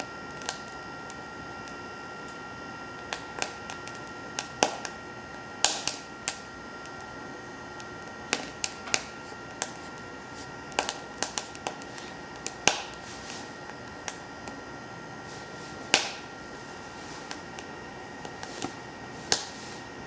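BioLite CampStove burning split wood, the fire crackling with irregular sharp pops and snaps, over the steady high whir of the stove's built-in fan.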